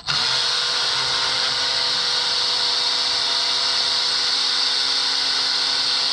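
Handheld power tool, a drill/driver type, spinning a bolt at a steady speed with a high-pitched whine.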